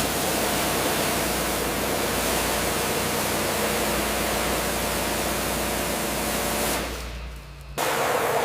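Loud steady hissing, rushing noise with a low hum beneath it. It fades out about seven seconds in, and a second hiss cuts in sharply near the end.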